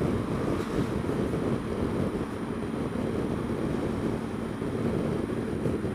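Honda Dio scooter being ridden, its engine giving a steady drone under wind rush on the camera microphone.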